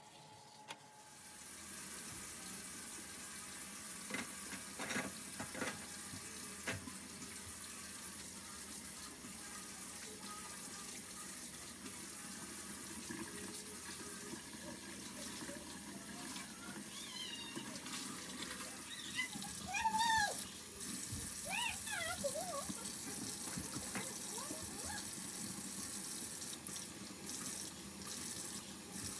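Water running from a kitchen tap into a sink, starting about a second in and running steadily. A few short, high calls that rise and fall come past the middle.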